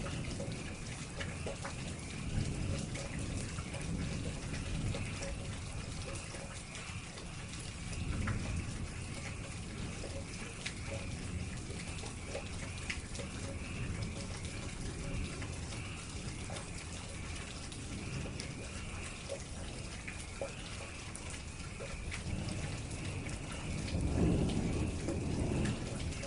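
Steady rain falling, with individual drops ticking close by. A low rumble swells up about eight seconds in and again near the end.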